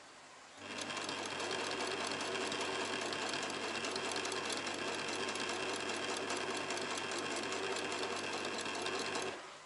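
An old Singer household sewing machine running steadily at a fast, even stitching rhythm as it sews a seam in curtain fabric. It starts about half a second in and stops shortly before the end.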